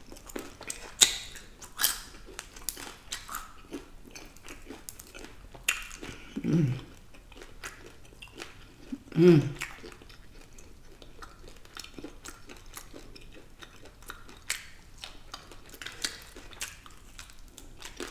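Close-miked chewing and biting of food, with many short wet clicks and smacks throughout. Two brief low vocal sounds come about six and nine seconds in.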